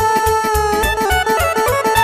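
Romanian wedding band playing traditional dance music over a steady beat. A held chord gives way to a fast run of notes about a second in.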